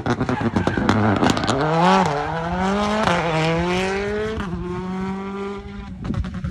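Rally car's engine crackling and popping off the throttle through a hairpin, then accelerating hard out of it, rising in pitch with quick upshifts about two and three seconds in, and fading as the car pulls away.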